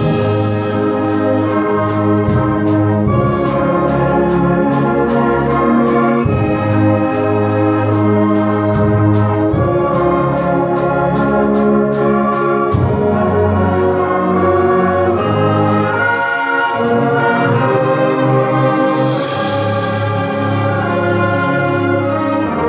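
Middle school concert band playing slow, sustained brass and woodwind chords. A steady percussion beat of about two or three strokes a second runs through the first half, and a cymbal crash rings out near the end.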